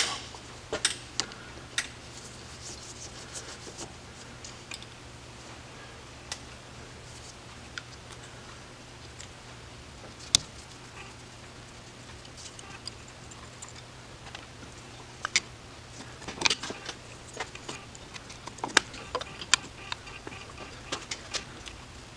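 Scattered small metallic clicks and taps as a screwdriver turns out the screws holding a distributor's vacuum advance unit, more of them toward the end, over a faint steady low hum.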